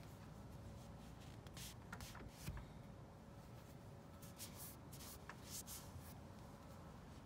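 Faint, short rubbing strokes of a cloth pad on a teak tabletop, in two small groups, as a burn mark treated with Bar Keepers Friend paste is wiped over.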